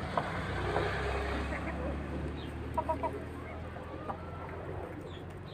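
Domestic chickens clucking while being fed, with three quick clucks about three seconds in, over a steady low rumble.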